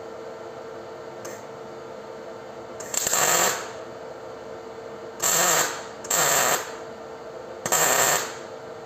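MIG welder laying short tack welds on steel: four bursts of arc crackle about half a second each, starting about three seconds in, after a brief faint one about a second in.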